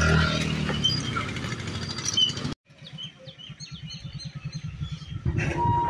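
A truck's engine runs with a loud, low rumble as it crosses the tracks. The sound then cuts off suddenly and gives way to birds chirping over a quieter, pulsing idle of a waiting vehicle's engine. A steady high tone begins near the end.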